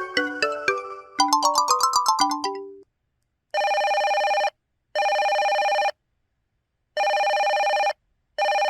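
Curitel PT-K2800 slide phone ringtone played on its Yamaha YMU765 64-voice synth chip. A bright, quick, chiming melody ends about three seconds in. After a short pause comes an electronic trilling ring in one-second bursts, set out in pairs.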